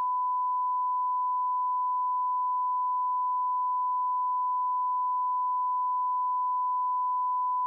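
A steady, unbroken beep at one pitch, a censor bleep dubbed over the sound track that blanks out the conversation entirely.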